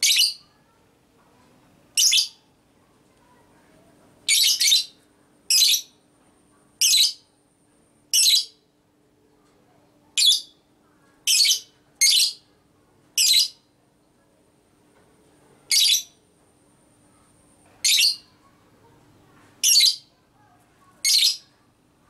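Fischer's lovebird giving short, shrill calls, about fifteen of them at uneven intervals, a few in quick pairs.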